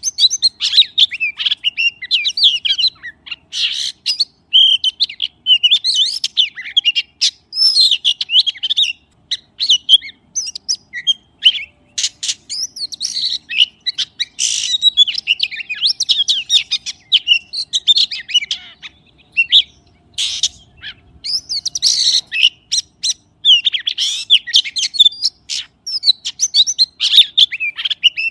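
A magpie singing a continuous run of quick, varied, high chirps and whistles with short pauses, and a few sharp clicks among them.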